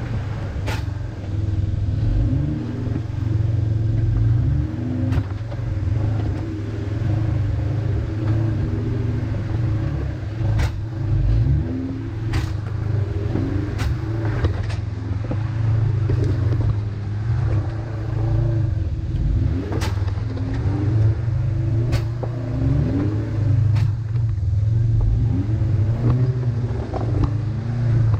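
Jeep engine running at low speed and revving up and down as the Jeep crawls over rocks, with sharp knocks now and then.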